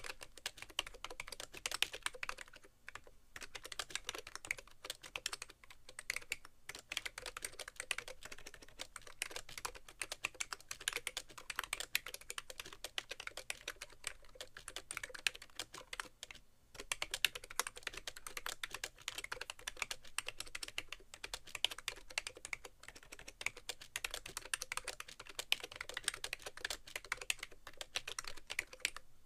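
Typing on a BTC 5100c mini keyboard, whose rubber-dome keys have sliders: a fast, continuous run of key clicks with a few brief pauses. The keys have a hollow, almost thock-like sound, with the keyboard resting on a bare keyboard tray.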